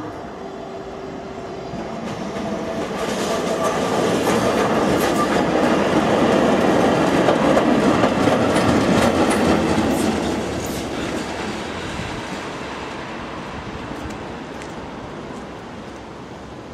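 A ČD class 162 electric locomotive, running alone, passing on the station tracks, its wheels clattering over rail joints and points. The rumble builds to a peak around the middle, with sharp clicks, then fades away.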